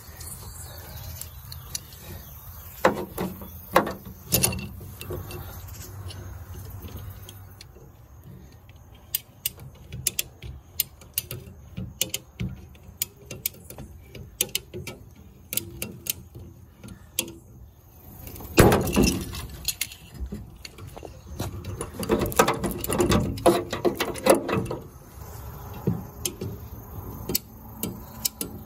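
Ratchet clicking of a hand-operated puller being worked to pull a crushed quarter panel back out. Scattered single clicks give way to louder, faster runs of clicking about two-thirds of the way through and again shortly after.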